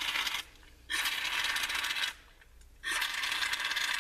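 Aerosol brake cleaner sprayed in short hissing bursts through its straw down a Coleman stove's tube and into a stainless steel bowl, flushing out baked-on gunk and clearing the tube's fine, clogged orifice. One burst stops about half a second in, a second lasts about a second, and a third starts near the end.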